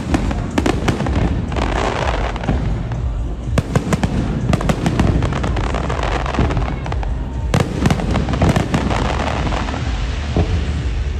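Fireworks salute going off: a rapid, irregular string of bangs and crackles over a steady low rumble, with music playing.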